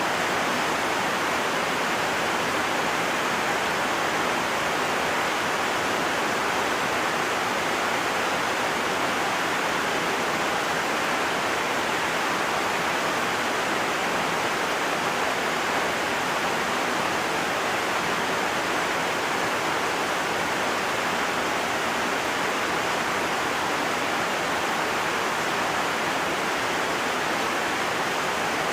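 Heavy rain falling steadily: an even, unbroken hiss with no single drops or thunder standing out.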